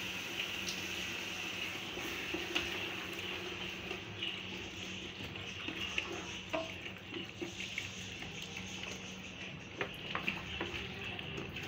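Water poured from a plastic bottle into a pot of masala, glugging and splashing, with scattered small clicks over a steady background hiss.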